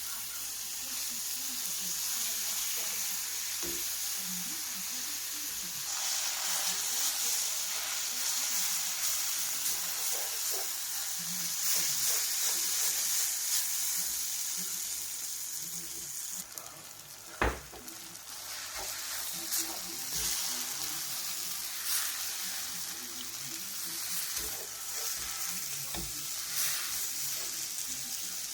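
Food sizzling and frying in a hot pan while it is stirred, a steady hiss with scattered clicks and scrapes. The sizzle grows stronger about six seconds in, and a single sharp knock comes a little past halfway.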